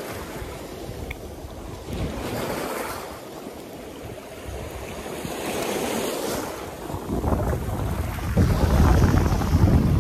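Small sea waves washing onto a rocky stone shore, with wind buffeting the microphone; the wind rumble grows louder in the last few seconds.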